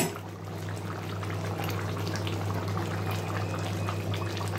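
Thick chicken curry gravy with potatoes simmering in a pan, its bubbles popping in many small irregular plops over a steady low hum. A brief knock sounds right at the start.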